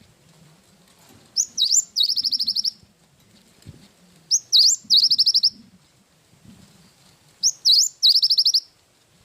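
Cinereous tit (gelatik batu) singing three loud, high-pitched phrases about three seconds apart, each a couple of quick rising notes followed by a fast repeated trill.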